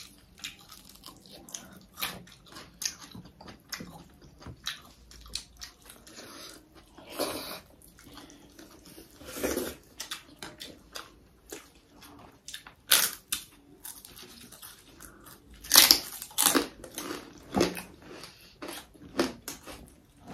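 Close-up eating sounds: people chewing and biting into meat curry with rice, with irregular sharp clicks and smacks, a few louder ones in the second half.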